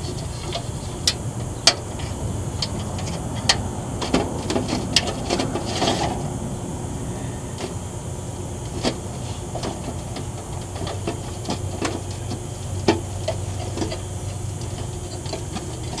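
Scattered small clicks, taps and scrapes of a hand and a screwdriver working wires at an air-conditioner condenser's contactor, thickest a few seconds in, over a steady low hum.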